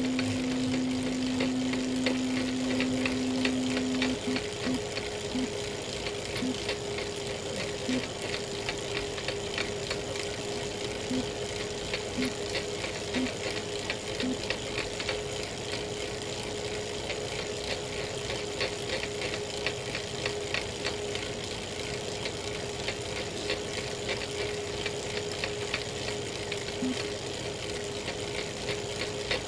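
Elite Real Turbo Muin B+ smart trainer running under pedalling: a steady whine with a fast, continuous crackling over it, the cracking noise that the owner hears at any cadence once power goes above 200 watts. A lower hum cuts out about four seconds in and afterwards returns only as brief blips.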